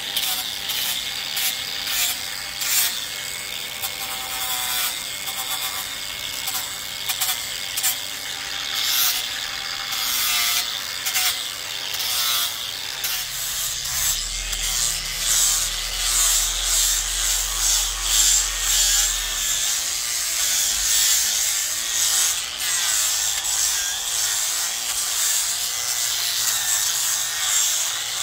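Cordless angle grinder with a sanding disc running while it is pressed against a cedar carving and sands the wood. The motor's whine wavers up and down in pitch as the load changes, under a steady scraping hiss.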